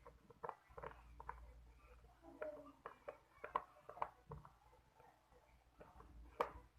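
Faint, irregular clicks and taps of a stirrer working a watery glue-and-detergent slime mixture in a container.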